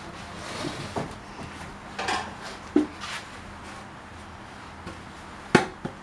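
Wooden boards being handled on a workbench: a few scattered knocks and short rustles, the sharpest knock about five and a half seconds in.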